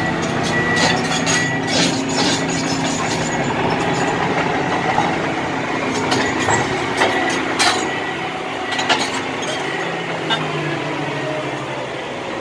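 Heavy machinery being loaded: an engine running steadily under repeated sharp metal clanks and clicks.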